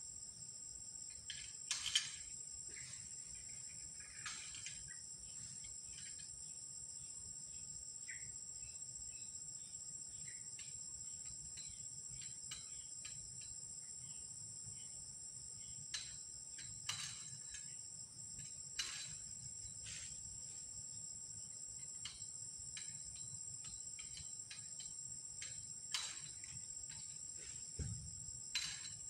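Steady, high-pitched insect chorus droning without a break, with scattered short sharp clicks every few seconds.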